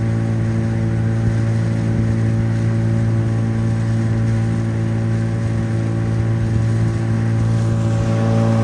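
A CraigCat's outboard motor running at a steady cruising speed, a constant low drone, with the boat under way.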